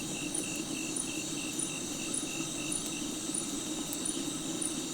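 Cricket chirping steadily, about three to four even pulses a second, over a constant background hiss.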